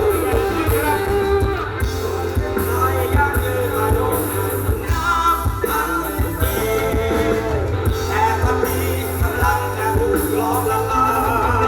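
Rock band music with a singer's voice over a steady bass.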